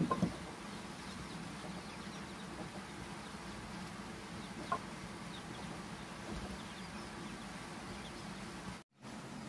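Chickens clucking a few times over a steady low hum: short calls right at the start and again about halfway through. The sound cuts out briefly near the end.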